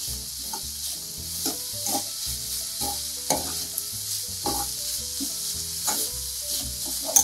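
Chopped green beans and onions sizzling in a kadhai with a steady hiss, while a metal spatula stirs them and scrapes against the pan every half second to a second.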